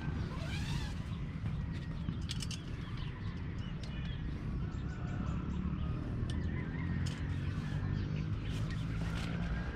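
A bird calling a few times over a steady low rumble, with a few short clicks.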